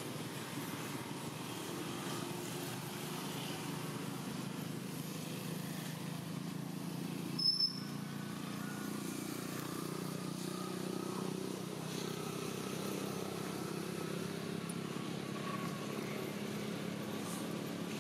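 Steady low hum of a motor vehicle engine, with a short high squeak about seven and a half seconds in.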